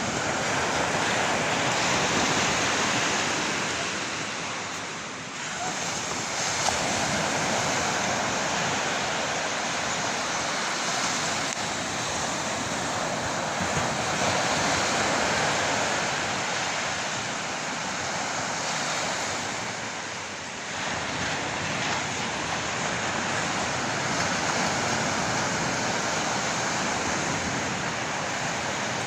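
Ocean surf: a steady rush of breaking waves that swells and eases slowly, dipping briefly about 5 seconds in and again about 20 seconds in.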